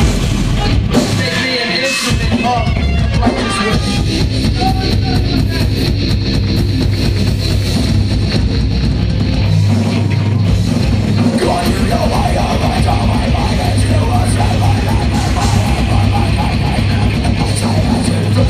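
Metalcore band playing live: distorted electric guitars, bass and drum kit, loud and dense with a heavy low end.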